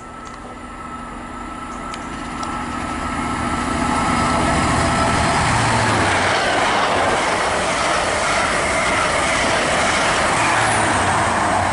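High Speed Train (InterCity 125) with Class 43 diesel power cars passing at speed. The engine and wheel-on-rail noise builds over the first four seconds, then holds loud and thundering.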